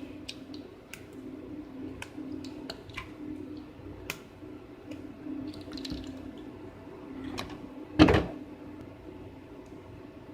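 Scattered small clicks and ticks of old ALPS key switches being handled and their metal pins bent out of shape, with one louder clatter about eight seconds in, over a steady low hum.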